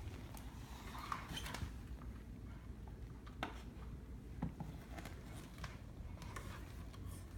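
Faint scattered clicks, taps and rustling of small objects being handled, with a slightly sharper click a little past three seconds in.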